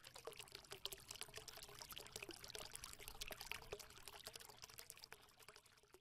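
Faint crackling sound effect under the channel's logo animation, a dense patter of many tiny clicks.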